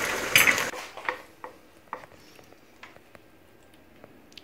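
Saucy beef sizzling in a wok under wooden spatulas, the sizzle cutting off about a second in. After that come scattered light knocks of a wooden spatula against a glass serving bowl as the beef is spooned in.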